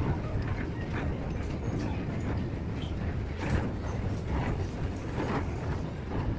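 Escalator running, a steady low rumble with scattered clicks and knocks.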